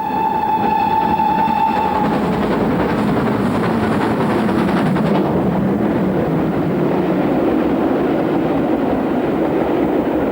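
Great Western Castle-class steam locomotive sounding its whistle, one steady note for about two seconds, then the locomotive and its train running on with a loud, steady rumble.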